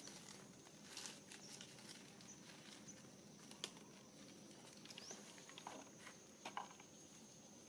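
Near silence: a faint, steady high-pitched insect drone, with a few soft clicks and rustles scattered through it.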